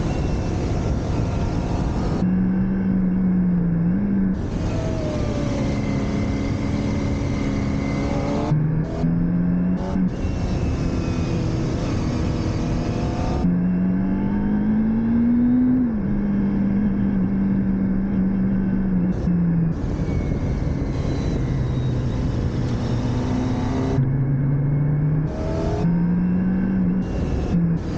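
Motorcycle engine under way, its note climbing under acceleration and dropping in steps at gear changes. Stretches of wind rush come and go with it.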